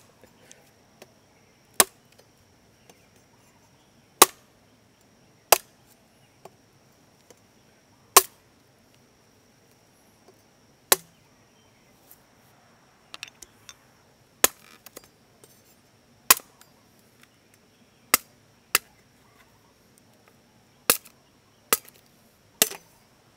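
Machete chopping through bamboo: single sharp strikes about one to two and a half seconds apart, around fifteen in all, as a freshly cut stalk is cut into tube sections.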